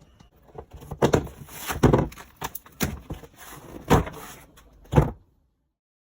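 A run of irregular knocks and thumps on a car door trim panel, about half a dozen loud ones with rattling clatter between them, stopping abruptly about five seconds in.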